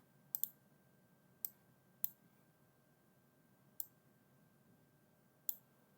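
Computer mouse clicking: a quick double click, then four single clicks spaced a second or two apart.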